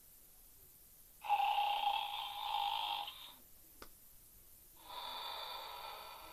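Battery-powered toy cat's small speaker playing its recorded cat noise in two bursts, the first about two seconds long and the second about a second and a half, with a sharp click between them.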